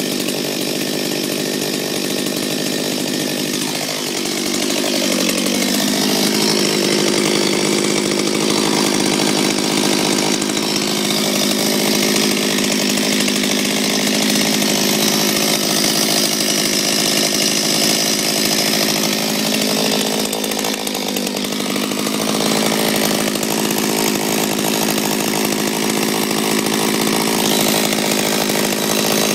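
Stihl 034 AV two-stroke chainsaw running. Its engine pitch falls about four seconds in, and then it runs steadily.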